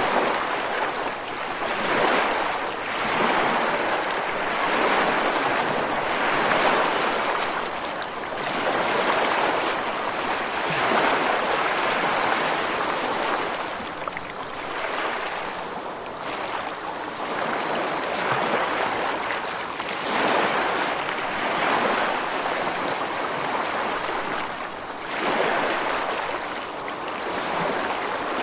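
Ocean waves washing ashore: a continuous surf hiss that swells and recedes every two to four seconds.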